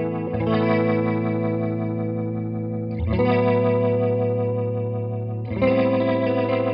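Electric guitar chords played through a Dawner Prince Pulse revolving speaker emulator pedal, set to its fast speed turned all the way down; the spinning-speaker effect gives each held chord a quick pulsing warble. Three chords are struck and left to ring, a couple of seconds each.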